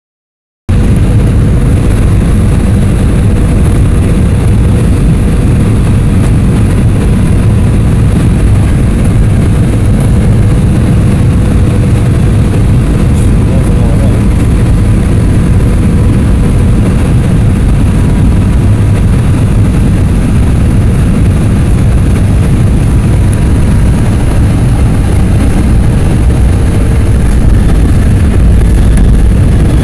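Loud, steady cabin noise inside a Boeing 717 during its landing: a deep rumble of airflow and the jet engines, with a faint steady whine over it.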